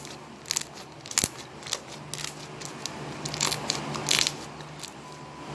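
Homemade slime being squeezed and poked by hand, giving irregular crackles and pops.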